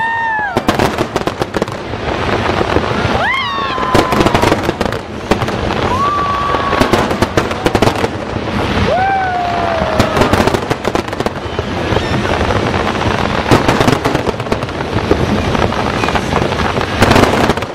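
Aerial fireworks barrage: many shells bursting at once, a dense continuous crackling with bangs throughout. Four short high-pitched wails rise and then fall, near the start, about 3, 6 and 9 seconds in.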